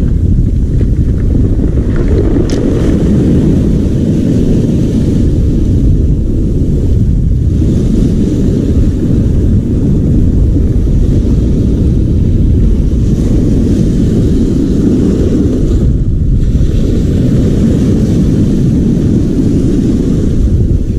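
Loud, steady low rumble of wind buffeting the microphone mixed with surf breaking and washing over a pebble beach.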